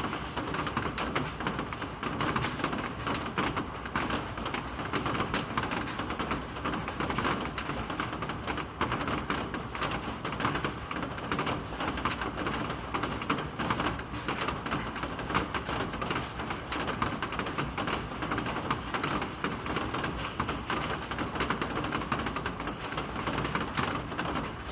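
Steady rain falling, a dense, unbroken run of drops striking a hard surface.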